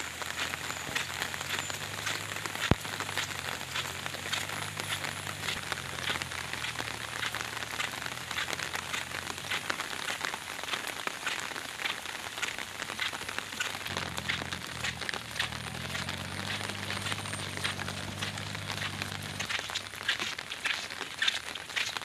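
Steady rain pattering, a dense run of fine drops. A low hum sits under it for stretches, and there is one sharp click about three seconds in.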